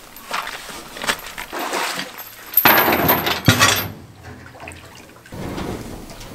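Clattering and crunching as a boat anchor and its rope are carried over loose rocks and handled aboard a boat, with footsteps on stones. The loudest clatter comes about three seconds in.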